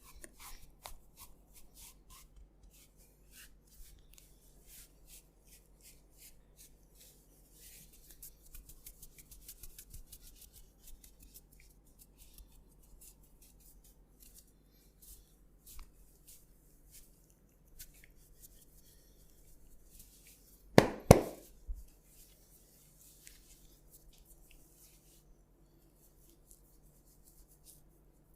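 Close, crackly rustling of hands rubbing through hair and over the scalp and skin in a head massage, with many faint soft clicks. About two-thirds of the way through, one loud burst of a few sharp knocks lasts under a second.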